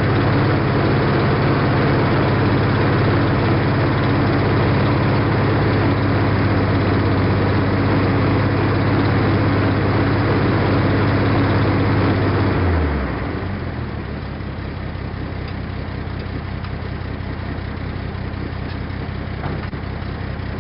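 A fifty-year-old truck's engine runs steadily, driving a papercrete mixer blade through a tank of slurry. About thirteen seconds in, the pitch falls and the sound drops as the mixing stops, leaving the engine idling more quietly.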